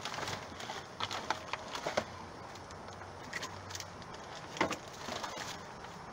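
Plastic food packaging rustling and crinkling as groceries are handled and set into a cardboard box, with irregular taps and clicks. The sharpest knock comes about four and a half seconds in.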